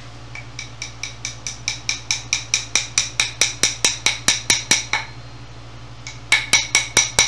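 Small metal-headed hammer tapping a glued oak dowel down into a chair joint. About twenty quick, even taps come over four and a half seconds, growing louder, each with a short ring; after a pause of about a second a second quick burst of taps comes near the end.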